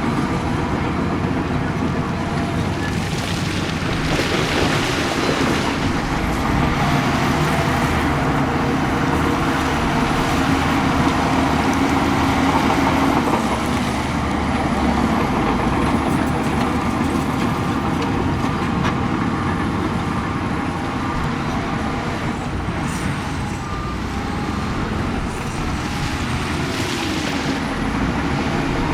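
Heavy diesel earthmoving machinery running steadily under load, with bursts of hissing a few seconds in and again near the end.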